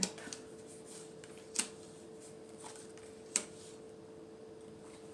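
Two sharp taps about two seconds apart as cards are handled and set down on a table, over a faint steady hum.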